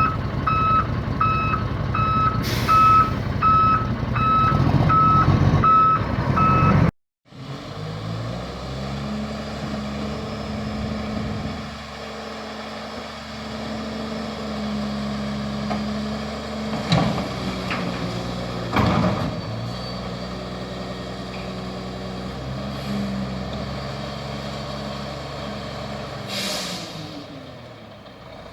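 Garbage truck backing up, its reverse alarm beeping steadily over the diesel engine, with a short air hiss about two and a half seconds in. After a cut, a garbage truck's engine runs at raised, steady revs while packing trash, with a couple of sharp clanks, an air hiss near the end, and the revs dropping away.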